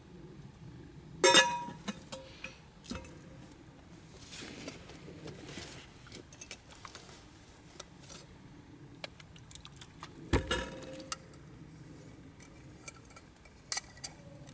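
Stainless steel billy can, lid and nested cup clinking and knocking together as the set is taken apart by hand. A sharp ringing metal clink about a second in is the loudest sound, with a scraping rustle a few seconds later, a duller knock past the middle and a couple of light clinks near the end.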